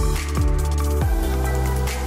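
Background music with a deep, sustained bass line whose notes slide down in pitch a few times, over light ticking percussion.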